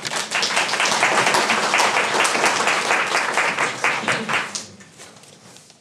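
Audience applauding, many people clapping at once: it swells in right away, holds steady, and dies away over the last second or so.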